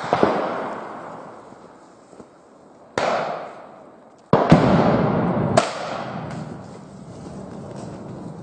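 Gunfire in a gunfight: a handful of loud, sudden shots, the heaviest ones a little past the middle, each trailing a long rolling echo through the wooded hillside.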